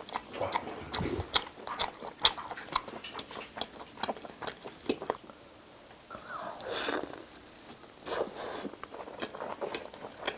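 Close-miked biting and chewing of cheese-topped pizza: the crust crunches and the mouth makes many sharp wet clicks and crackles.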